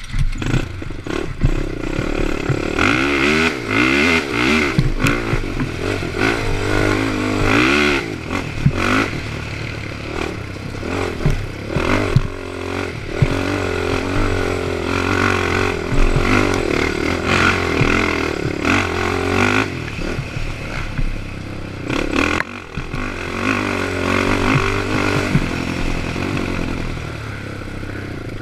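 Honda TRX450ER ATV's single-cylinder four-stroke engine revving up and down again and again as it is ridden hard over a rough dirt trail, with rattling and clattering from the machine over the bumps.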